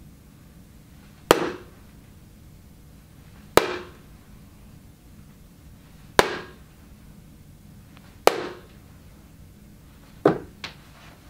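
Magnetic darts striking a magnetic dartboard one throw at a time: five sharp clacks about two to two and a half seconds apart, the last followed closely by a smaller knock.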